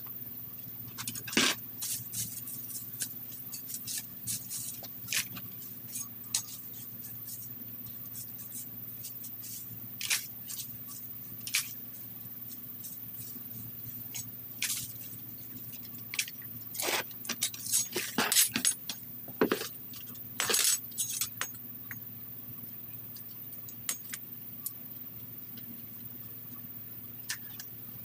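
Weeds being pulled by a gloved hand from the mulch and paver edge: irregular crunches, rustles and scrapes, busiest in the middle. A steady low hum sits underneath.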